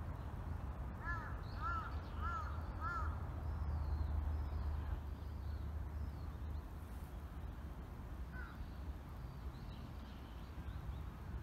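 A crow cawing four times in quick succession, about two-thirds of a second apart, with one more caw later, over a steady low rumble. Faint small-bird chirps are also heard.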